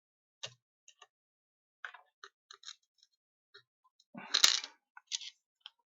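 Small metal tool clicking and scraping against the modem's circuit board, in light scattered ticks. About four seconds in comes a louder half-second clatter of scraping.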